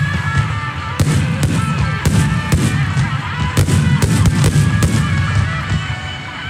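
A rapid barrage of aerial firework shells bursting in a display finale: sharp bangs several times a second over a continuous low rumble, which eases near the end.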